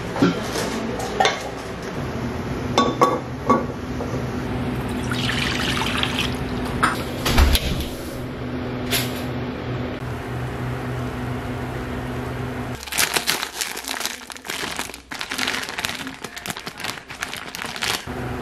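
Cooking sounds at a stove: a few knocks of a frying pan being handled in the first seconds and water being poured, then water bubbling at the boil in the pan over a gas burner, a dense crackling from about two-thirds of the way in. A steady low hum runs underneath.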